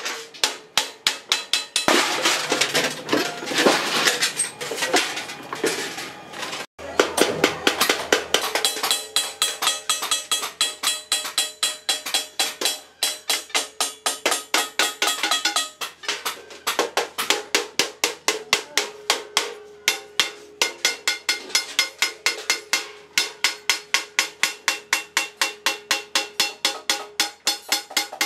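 Hand hammer striking a rolled sheet-metal cylinder on a steel stake in a fast, even rhythm of about four blows a second, each blow ringing metallically. The first few seconds are a denser metal clatter.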